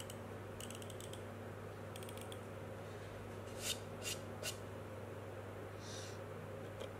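Snap-off utility knife being worked: its blade slider ratchets out in short runs of fine clicks, followed by three sharper clicks about half a second apart and another near the end.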